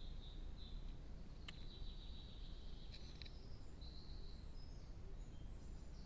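Faint, high-pitched bird song: short warbling phrases repeating over a low steady hiss, with a single sharp tick about a second and a half in.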